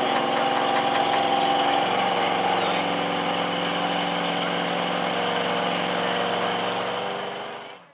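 Dodge Ram 1500 pickup's V8 engine running hard under load as it drags a truck-pull sled through dirt. Its note shifts about two seconds in, then fades out near the end.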